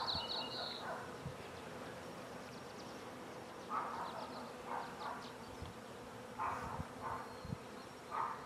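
Honey bees humming steadily around an open hive. A few short rushes of noise and light knocks come through as the frames are handled.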